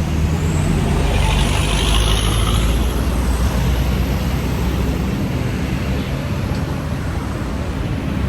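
Busy road traffic: a steady rumble of motor vehicles running and passing close by.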